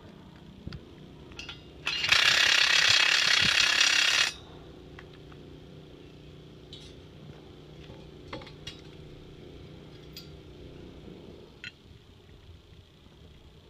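Loud mechanical rattling for about two seconds, from a tool fastening a trench drain grate's locking bar, over a low steady hum with a few light metallic clicks.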